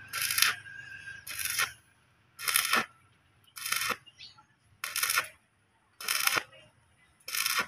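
Stick arc welding on a steel gate frame, done in short stitches. The arc is struck and broken again and again, giving a crackling sizzle of about half a second, a little more than once a second.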